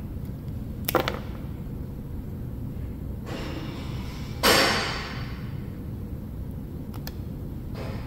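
Wire cutters snipping through small automotive wires: a sharp snip about a second in and another near the end. A louder brief whoosh, fading over half a second, comes about halfway through.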